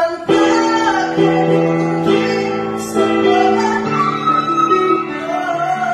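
Singing over guitar and piano accompaniment; a male singer goes up into the whistle register and holds a high note around E6 about four seconds in.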